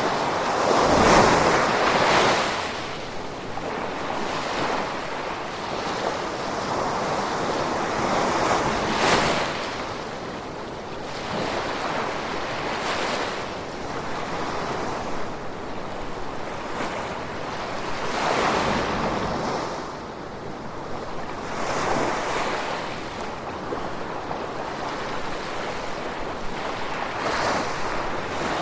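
Gentle ocean waves washing in, a rushing noise that swells and falls back every few seconds, the loudest surge about a second in.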